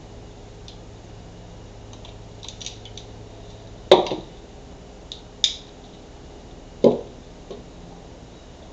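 Pruning shears cutting a piece of driftwood: a few faint clicks, then a loud snap just before four seconds in as the blades go through. Sharper clicks follow, and a duller knock comes near seven seconds.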